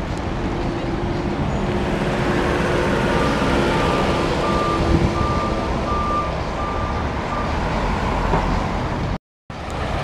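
Street traffic, with a double-decker bus's engine running as the bus pulls away. An electronic beeping, about two beeps a second, sounds for several seconds in the middle. The audio cuts out briefly near the end.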